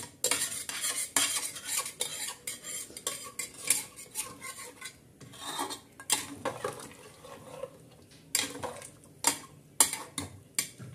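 A metal spatula stirring a thin, watery mutton and potato curry in an open pressure cooker, scraping and clinking against the pot in irregular strokes, with a few sharper knocks in the last few seconds.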